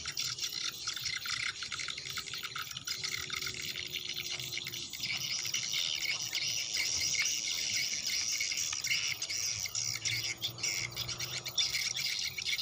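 Birds chirping and calling over a steady, high-pitched outdoor chorus of chirps.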